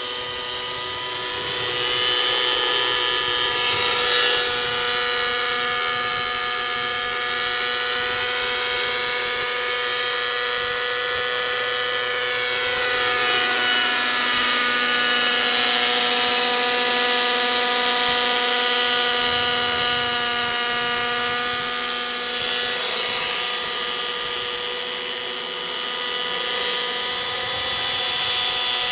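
Align T-Rex 600 nitro model helicopter flying, its OS 55 glow engine and rotors making a steady high-pitched whine. The higher tones bend up and down as the helicopter makes its passes.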